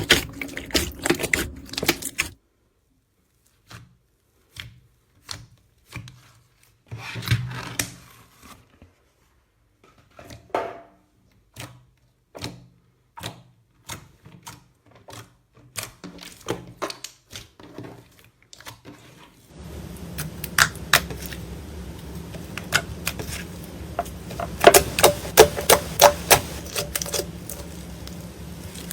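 Slime being squeezed and poked by hand, making a run of sharp, irregular sticky clicks and pops. About two-thirds of the way in, a low steady hum joins the sound and the clicks come thicker and louder.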